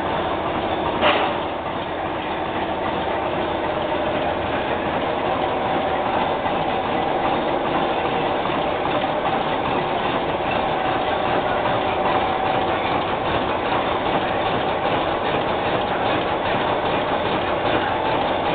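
Side-sealing plastic bag making machine running: a steady, rapid mechanical clatter from its rollers and sealing mechanism, with one sharp clack about a second in.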